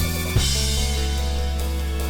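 Background music: a drum hit near the start, then sustained bass and held chords.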